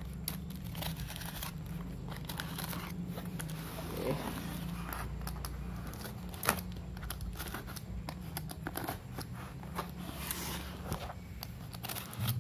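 Utility knife cutting through plastic packing tape on stacked cardboard boxes, with irregular scrapes, crinkles and clicks as the boxes are handled, and one sharper knock about six and a half seconds in. A steady low hum runs underneath.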